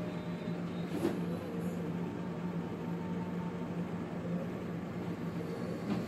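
Steady low background hum with a constant low tone, and a brief faint tap about a second in and again near the end.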